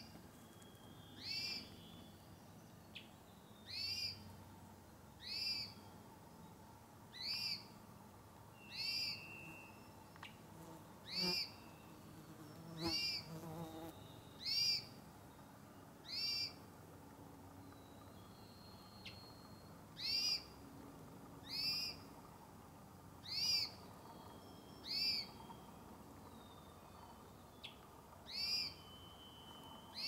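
A spotted brown thrush repeats a short whistled call note, one every one and a half to two seconds, with a brief pause past the middle. Faint thin notes from other birds come between the calls.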